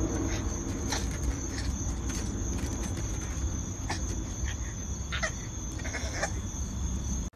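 Outdoor background of a steady high insect drone over a low rumble, with short sharp squeaks and clicks scattered through it.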